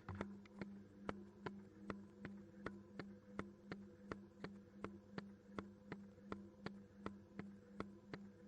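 Washing machine heard from inside the drum: a steady, even ticking, about three to four clicks a second, over a low steady motor hum.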